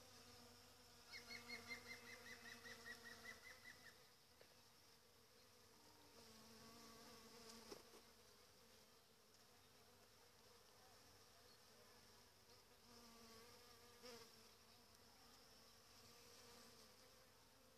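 Honeybees buzzing faintly as they forage on the blossom: a steady low hum that swells now and then as a bee passes nearer. About a second in, a quick run of high chirps lasts some three seconds.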